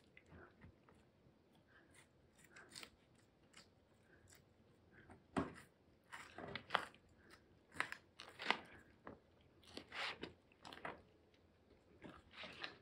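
Cats chewing and biting through fresh sweet potato leaves and stems: irregular crunchy bites, some in quick runs of several.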